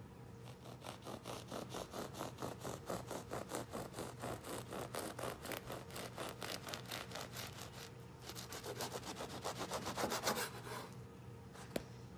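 Serrated bread knife sawing back and forth through a loaf of shokupan, a rasping stroke about five times a second. The strokes grow quicker and louder for the last few seconds, then stop, followed by one sharp click.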